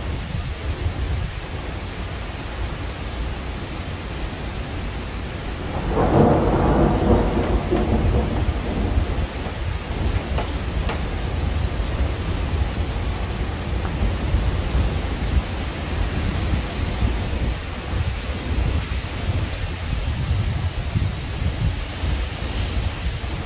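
Steady rain during a thunderstorm, with a low rumble of thunder underneath. About six seconds in, a louder roll of thunder breaks out and rumbles off over several seconds.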